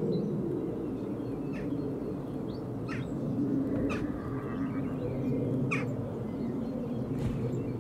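Birds calling outdoors, about five short calls scattered a second or so apart, over a steady low rumble of background ambience.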